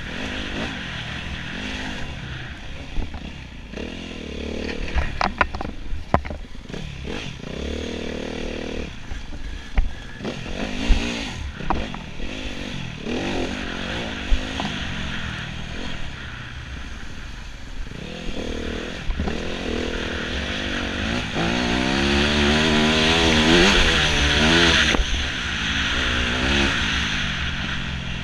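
Enduro motorcycle engine revving up and down repeatedly as it rides, with sharp knocks and clatter scattered through. It is loudest about three quarters of the way through, where the revs climb in quick sweeps.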